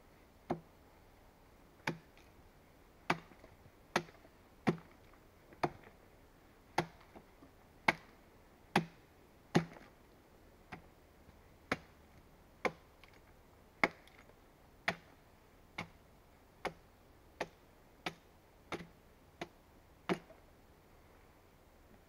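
Small axe chopping into a log to hew it into a beam: about twenty sharp strikes of steel into wood at roughly one a second, then stopping.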